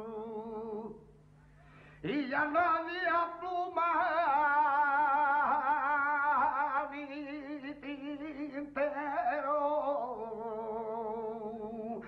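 Male flamenco singer singing cante: long ornamented phrases in one voice with heavy vibrato. A held note fades out about a second in, and after a brief pause a new phrase starts sharply about two seconds in.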